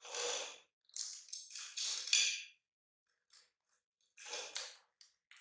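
Crispy snack crackling and crunching as a baby monkey grabs and breaks pieces off it on a plate. It comes in several short bursts, the loudest about two seconds in.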